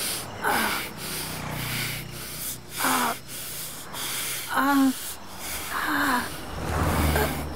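A young woman sobbing: short, wavering crying gasps about once a second, with a low hum underneath for part of the time.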